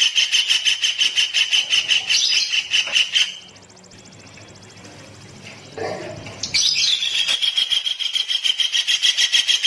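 A songbird's rapid, even trill of about nine notes a second, used as a training recording for cage birds. It breaks off about a third of the way in, leaving a quieter gap of about three seconds, then starts again.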